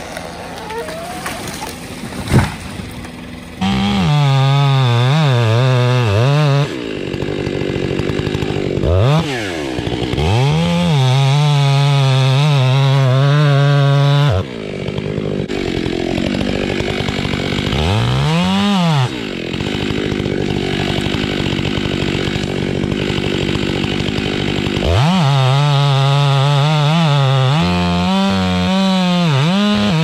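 A heavy thump about two seconds in as a felled tree hits the ground. Then a two-stroke chainsaw cuts into a standing trunk, revving up to full throttle and easing back off several times.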